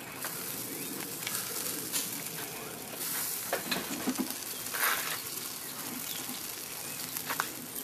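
Brisket sizzling steadily on a charcoal smoker's grate, fat dripping onto the hot coals, as it is turned with a meat fork. A few short clicks and scrapes come from the fork and meat against the metal grate.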